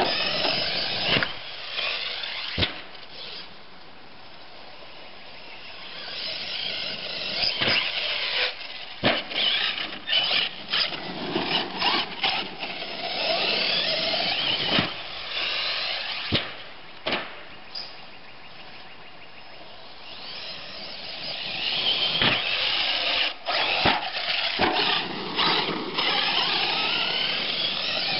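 Team Losi LST2 R/C monster truck, converted to an 1800KV brushless motor on 5S LiPo, being driven hard: a high motor and drivetrain whine that rises and falls with the throttle, broken by sharp knocks and clatters from landings and tumbles. The whine drops away twice, a few seconds in and again past the middle.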